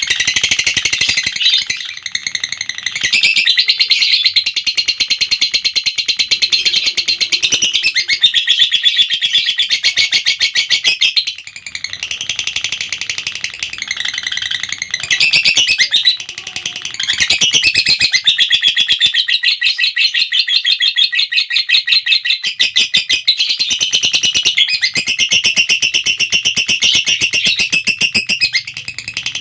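Lovebird's long 'ngekek' chatter: a high, rapid rattling run of calls held for many seconds at a time, breaking off briefly about two seconds in, near the middle and again a few seconds later before picking straight back up.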